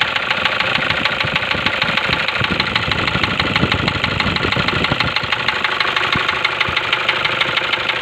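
Toyota Hilux diesel engine idling with a fast, steady knocking clatter, the injector knock that the mechanic puts down to a faulty injector after a scan-tool injector feedback reading.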